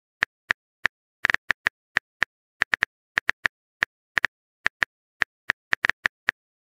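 Phone keyboard typing sound effect: a run of short, light key clicks at an uneven pace of about three a second, as a text message is typed out.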